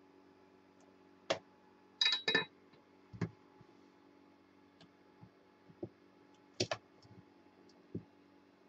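Scattered clicks and light clinks of small parts and tools being handled on a workbench, over a steady low hum. There is a sharp click a little over a second in, two ringing clinks about two seconds in, and a quick double click near two-thirds of the way through.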